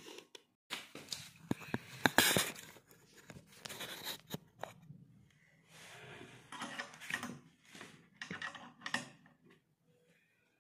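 Handling noise of flat-pack furniture assembly: irregular clicks, knocks and scrapes from a laminated cabinet panel and its metal screw fittings. A cluster of sharp clicks comes about two seconds in, and the sounds thin out near the end.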